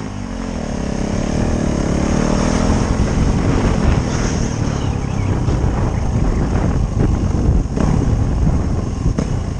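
Motorcycle engine running under acceleration, its pitch rising over the first few seconds and then holding steady at speed, with a heavy low rumble throughout.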